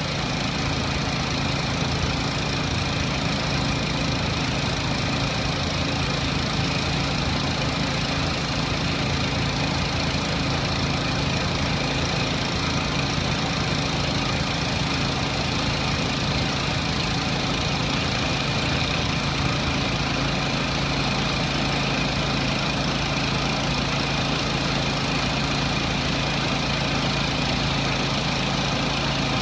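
Gas-engine pressure washer running steadily under load, with the steady hiss of high-pressure water spraying onto concrete.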